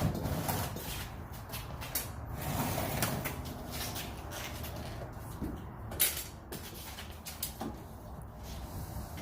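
Knocks, bumps and scrapes of a refrigerator being tipped and manoeuvred by hand, with one sharp bang about six seconds in.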